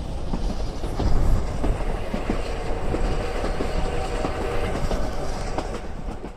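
Steady rumble of a passenger train running, heard from inside the carriage, with small clicks from the wheels on the track.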